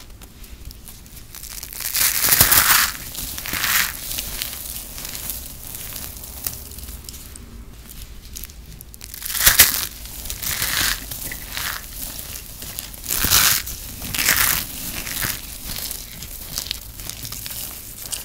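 Hands crushing balls of packed shredded soap, which give crisp, crunchy bursts as they break apart. Loud crunches come several times, the strongest about two seconds in, near the middle and a little later, with softer crumbling and rustling of soap crumbs between them.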